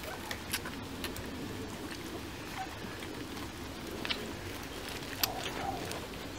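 A litter of Beauceron puppies suckling from their standing mother: scattered small smacking clicks and rustling, with a couple of faint squeaks.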